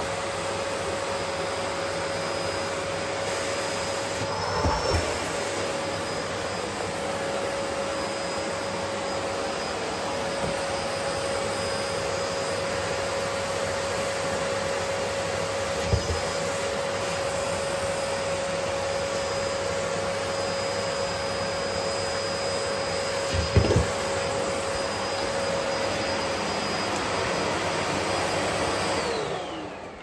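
Bosch BGS21X320 bagless canister vacuum cleaner running steadily with a whine, its bare hose end sucking at fabric on the floor, with a few brief knocks. Near the end it is switched off and the motor winds down.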